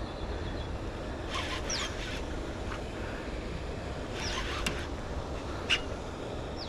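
Steady low background rumble with a few short, high squeaky chirps scattered through it.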